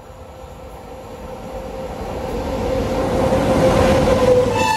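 WAP-7 electric locomotive and its passenger train running through a station at speed. The rumble and wheel noise swell as it comes up and passes close, with a steady whine throughout, and its horn starts right at the end.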